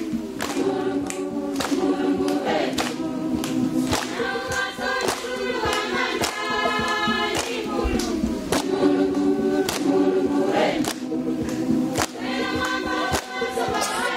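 Choir singing together in several parts to a steady beat of about two strokes a second.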